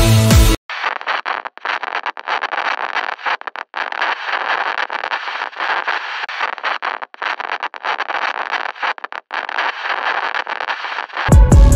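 Electronic music cuts off about half a second in and gives way to a rough, static-like hiss that keeps dropping out for split seconds. Loud electronic music comes back in just before the end.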